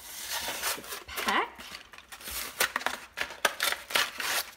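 Kraft paper packaging torn open and handled as glitter die-cut paper words are pulled out of it, a run of short rips, rustles and crinkles.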